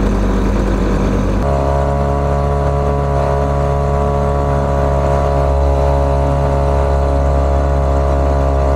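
Small outboard motor on an inflatable dinghy running steadily. About a second and a half in it steps up from a low idle to a higher, even speed under way.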